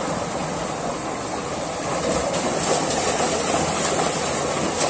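Steady rushing and splashing of muddy water in a narrow concrete channel, with water pouring in and frothing at the far end. It gets a little louder about two seconds in.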